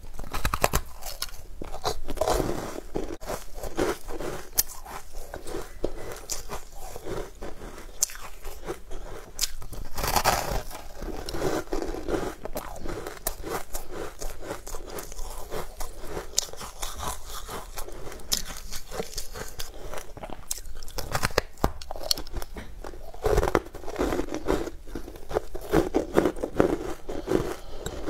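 Crunching bites and chewing of a frozen sweet ice bar coated in green powder: dense crackly crunches throughout, with louder spells near the start, in the middle and near the end.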